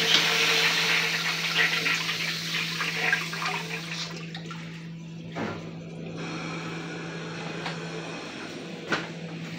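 Urinal flushing: a loud rush of water that fades over a few seconds into a quieter wash. A single sharp click near the end.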